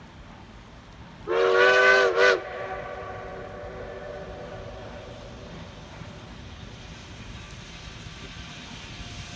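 Narrow-gauge steam locomotive's chime whistle: one blast of about a second, then a short second toot, its chord echoing and fading for a few seconds afterward.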